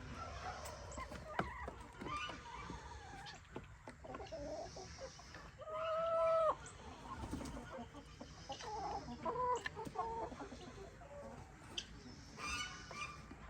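A flock of chickens clucking and calling, with one loud, drawn-out squawk about six seconds in.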